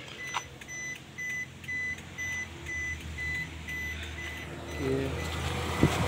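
Suzuki Every DA64 van's dashboard warning chime beeping steadily, about two beeps a second, growing fainter in the last seconds, over a low steady hum.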